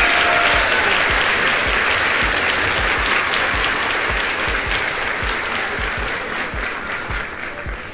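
Applause from a crowd of hands clapping, fading gradually toward the end, with a row of low thumps underneath.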